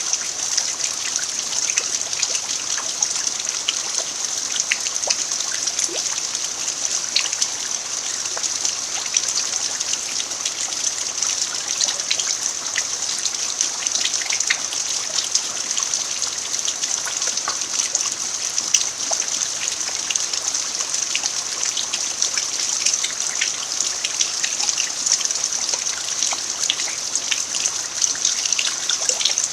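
Steady rain falling on a dirt farmyard, with many individual drops ticking and a trickling of water.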